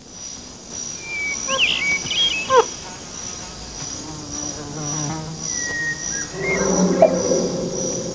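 Insects chirping in a steady pulse about twice a second, with scattered whistling calls that glide up and down and cluster near the end.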